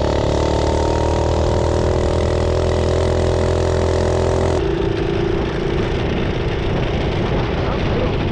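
Mini bike's small single-cylinder engine running flat out at steady high revs, with heavy wind and trail noise. About halfway through the sound changes abruptly to another steady engine note, still at speed.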